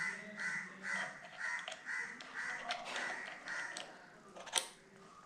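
A crow cawing in a quick series of about eight harsh caws, roughly two a second, followed by a single sharp click near the end.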